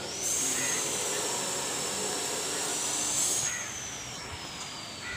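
A loud hiss that starts suddenly and cuts off after about three seconds, with a thin high whistle-like tone under it that drifts slowly lower and lingers faintly after the hiss stops.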